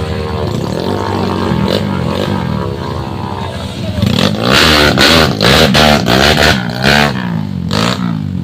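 Off-road trail motorcycle engine revving up and down. From about halfway comes a run of hard, loud throttle blasts.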